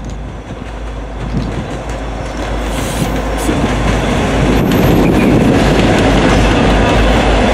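Two Norfolk Southern SD40E diesel-electric locomotives running light and passing close by, their engines and wheels on the rails getting louder as they come alongside about four seconds in.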